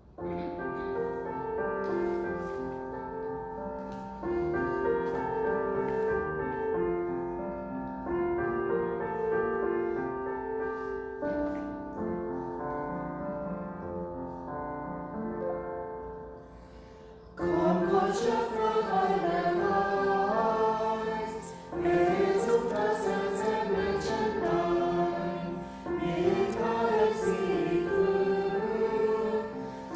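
A hymn: an instrumental introduction of held chords, changing every few seconds, then a choir begins singing about seventeen seconds in, noticeably louder.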